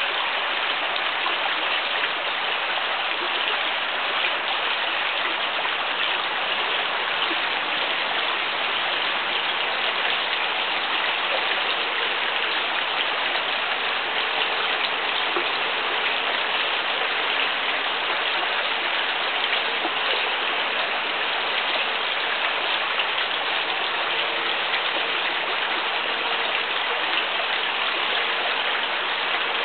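Steady, even hiss like rain falling, unchanging throughout.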